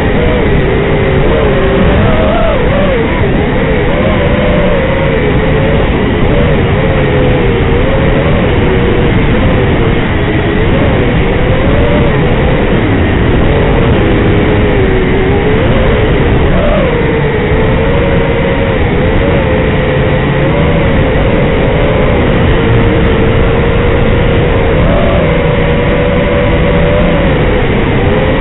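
The four Racerstar 2205 brushless motors of an FPV racing quadcopter whining in flight, several close tones rising and falling together as the throttle changes, over a steady rushing noise.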